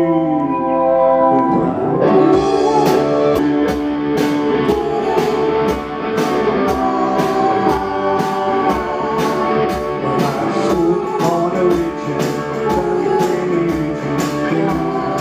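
Live rock band playing an instrumental passage: electric guitar and bass over a drum kit. About two seconds in, the drums come in with sharp cymbal strikes on a steady beat.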